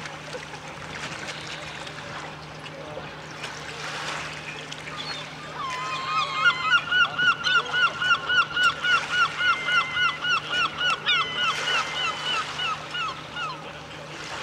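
A bird calling loudly: one drawn-out opening note, then a long run of about thirty quick repeated call notes, around four a second, which fade near the end.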